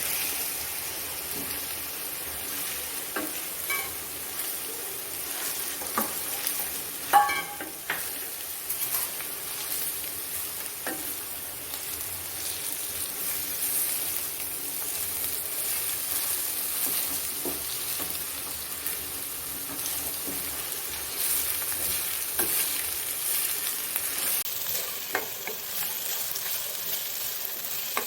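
Grated pumpkin sizzling in hot ghee in a pan as it is stirred and sautéed, with occasional knocks of the stirring utensil against the pan and one louder clink about seven seconds in.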